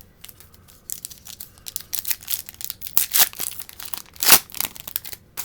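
Plastic trading-card pack wrapper being torn open and crinkled in the hands, a quick run of sharp crackles with one louder tear near the end.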